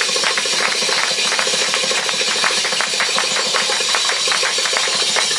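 Belly-dance music in a fast, steady drum roll, about ten strokes a second.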